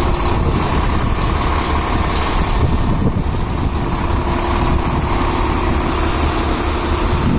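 Scania V8 truck engine running steadily, a constant low rumble with road or mechanical noise over it.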